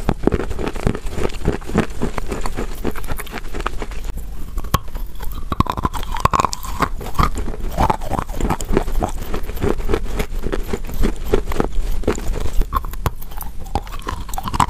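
Close-miked biting and chewing of a lump of wet chalk: a dense run of crunches and crackles.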